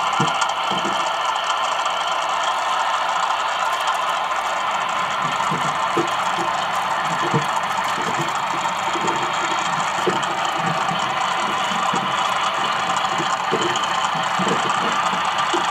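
A model diesel generator's electronic engine-sound simulator, playing a running diesel through a small speaker. It gives a steady hum with little bass and irregular light clattering knocks.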